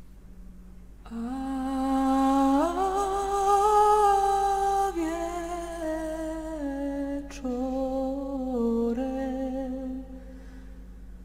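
A woman's voice humming a slow wordless melody in long held notes. It comes in about a second in, climbs a step, then walks down note by note and stops shortly before the end. A steady low drone sounds underneath.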